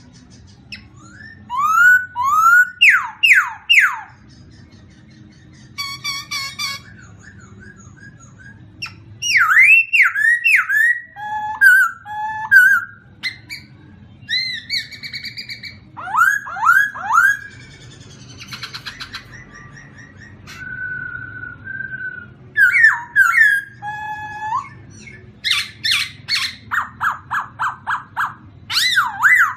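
Songbirds singing in short phrases of chirps and sweeping whistled notes, separated by brief pauses, with a quick run of repeated notes near the end. A faint low hum lies underneath.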